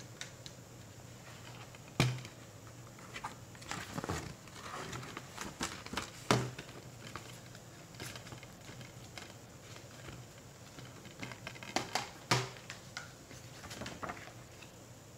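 Hands handling a plastic Blu-ray keep case and its paper booklet: scattered sharp clicks and taps with light rustling, the loudest clicks about two seconds in, six seconds in and twice near twelve seconds.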